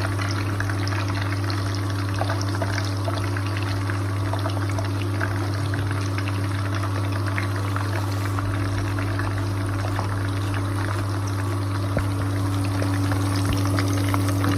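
Anchovies deep-frying in hot oil: a steady, dense sizzle with fine crackling, over a steady low hum.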